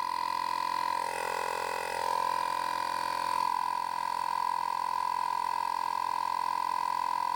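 Portable digital tire-inflator compressor running steadily while pumping up a car tire, a constant high-pitched motor whine. A rougher, lower buzz joins it for a couple of seconds about a second in.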